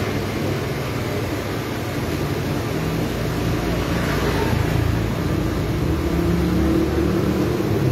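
Street traffic: a steady low engine hum, with a motorbike passing about four seconds in.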